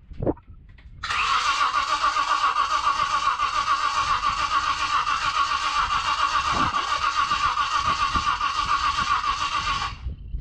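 Ford Capri 3.0S's Essex V6 being cranked over by its starter motor for about nine seconds on its first start after winter: a steady whine with a fast, even pulse that starts and stops abruptly, without the engine catching. A short thump comes just before the cranking.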